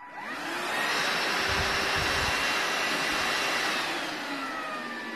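Morphy Richards Supervac cordless stick vacuum's motor switched on: it spins up with a rising whine over about a second and runs steadily with a strong airy rush, then drops to a lower, quieter speed about four seconds in.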